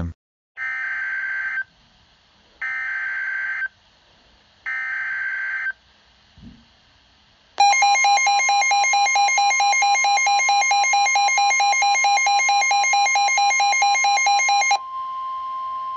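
Emergency Alert System SAME header: three one-second bursts of screeching digital data tones, about a second apart. After a short gap comes the loud two-tone EAS attention signal for about seven seconds, dropping to a single steady tone near the end. It marks the start of a new alert message, here a tornado warning.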